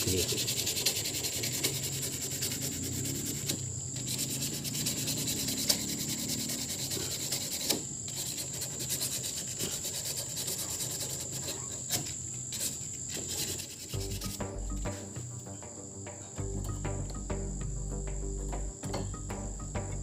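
Crickets chirping in a steady high trill, with light rubbing and rustling as hands twist a thin wire. The trill eases about two-thirds of the way through while low steady tones come in underneath.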